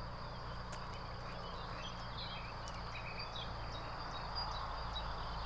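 Countryside ambience: a steady high-pitched insect sound with scattered short bird chirps over a low steady rumble.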